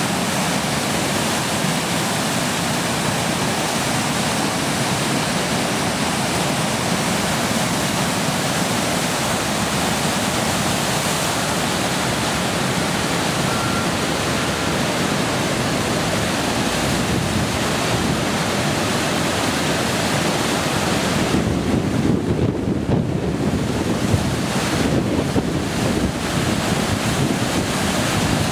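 Floodwater rushing over a low dam and churning downstream, a loud, steady noise of heavy water. About three quarters of the way in, gusts of wind buffet the microphone with uneven low rumbles.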